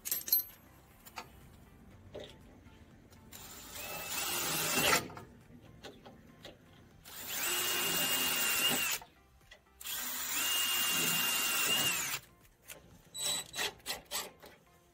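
Cordless drill boring into the dented sheet-metal body panel of a Suzuki Samurai in three bursts of a few seconds each, its motor whine steady and dropping in pitch as the trigger is released. A few light clicks follow near the end.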